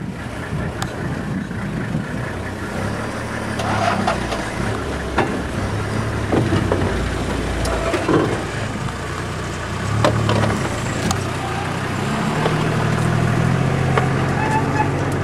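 A vehicle's engine running low and steady, picking up a little about twelve seconds in, with scattered knocks and rattles.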